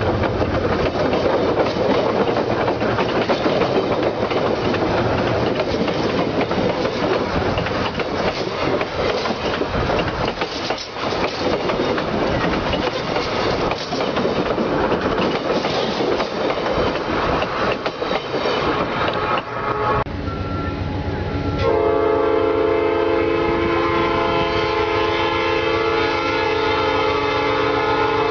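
Train running on the rails, a dense steady noise. About 22 seconds in, a train horn starts a long, steady chord of several notes that holds to the end.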